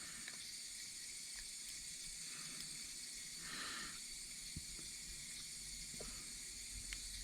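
Quiet steady hiss with a soft rustle about three and a half seconds in and a few faint light clicks: small drone parts being handled.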